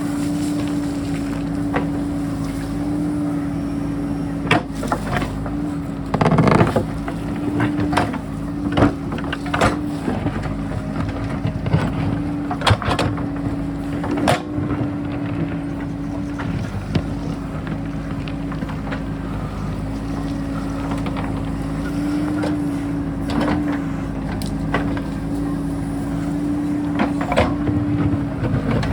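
JCB backhoe's diesel engine running steadily under load, with scattered sharp knocks and scrapes as the bucket digs into rock.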